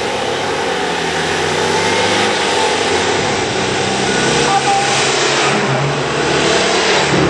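Citroën 2CV's air-cooled flat-twin engine running as the car drives slowly up and close by, getting a little louder in the last couple of seconds.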